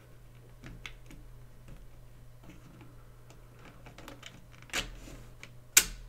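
Small clicks and taps of 3D-printed plastic pulleys and a keyed spacer being worked onto a metal axle by hand, with one sharp, loud click near the end as a part snaps into place.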